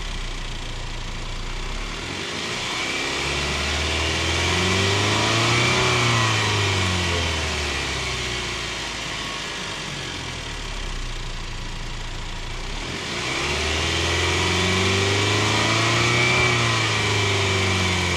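Cadillac ATS 2.0-litre turbocharged four-cylinder engine revved twice from idle to about 3,500 rpm. Each rev climbs slowly over a few seconds, holds briefly, then falls back to idle; the second is still settling near the end. The revving works CRC intake valve and turbo cleaner through the direct-injection engine to break up carbon on the valves.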